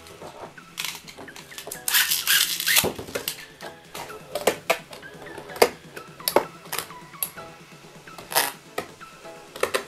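Beyblade Burst tops Grand Cetus and Thermal Lacerta launched into a plastic stadium: a rush of rattling and clatter about two seconds in, then the two spinning tops clacking against each other and the stadium walls in sharp, irregular clicks.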